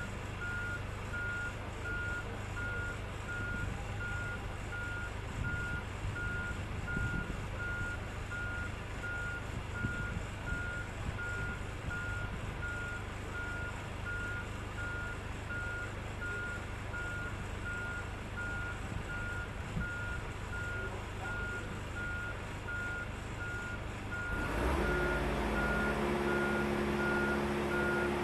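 A machine's warning beeper sounding steady, evenly spaced single-pitch beeps like a reversing alarm, over a low machinery hum. About 24 seconds in, a motor starts and runs steadily, a little louder.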